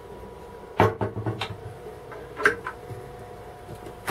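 Wooden galley cabinet door being opened by hand: a knock about a second in, followed by a few small clicks and another click in the middle, over a faint steady hum.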